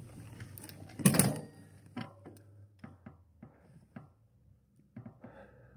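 Irregular light clicks and taps of fingers handling a smartphone held in the hand, with a short louder rustle about a second in.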